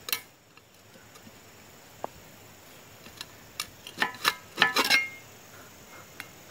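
Ceramic floor tile being snapped by hand over an edge: a few scattered sharp clicks, then a cluster of cracks and brief ringing clinks about four to five seconds in as the tile breaks apart.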